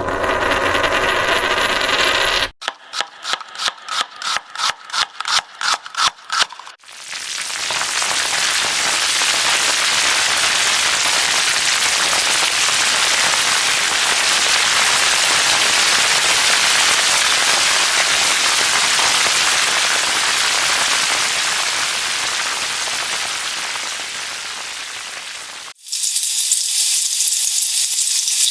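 A string of separate sound effects. First a pitched sound, then about a dozen sharp clicks or knocks that come quicker and louder, then a long steady noise that fades slightly, and near the end a high hiss begins.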